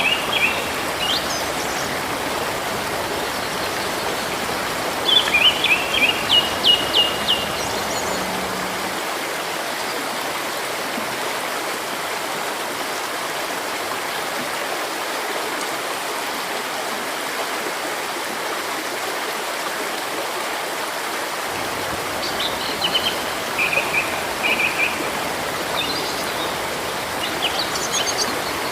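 Steadily running stream water with songbirds singing over it: a short phrase of chirps at the start, a quick run of repeated notes about five to seven seconds in, and more scattered chirps and trills in the last several seconds.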